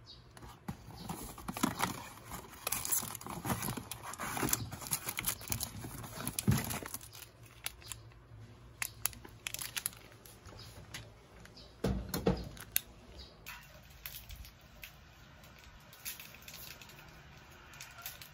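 Crinkling and rustling of snack packaging, a cardboard biscuit box and a foil-wrapped packet, being handled, thickest in the first several seconds, with a single dull thump about twelve seconds in.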